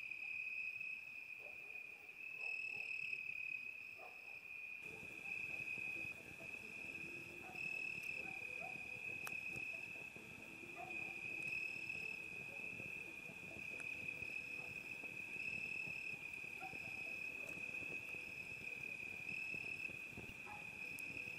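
Cricket trilling steadily, one unbroken high-pitched tone that swells and eases slightly in loudness.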